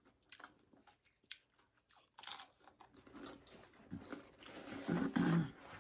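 Biting into and chewing loaded nachos, the tortilla chips crunching: a few sharp crunches in the first couple of seconds, the loudest about two seconds in, then steady close-up chewing that grows louder near the end.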